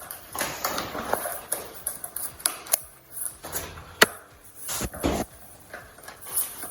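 Parts and packaging being handled: rustling and light clattering, with a sharp click about four seconds in and two dull knocks just after.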